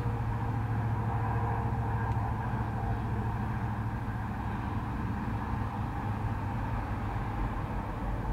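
Steady road-traffic rumble from a nearby freeway, heard from inside a parked car.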